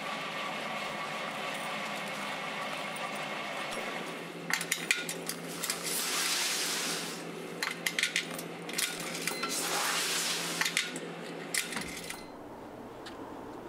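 Steady room hum, then a run of sharp metallic clicks and clinks from coins being fed into a coin-operated commercial washer's coin slide, with two longer rushing swells among them. The sound drops to a quieter steady background near the end.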